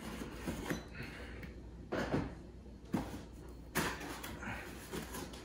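Cardboard box being cut open along its sealing tape and its flaps handled. There are scraping sounds and a few separate sharp knocks, roughly a second apart.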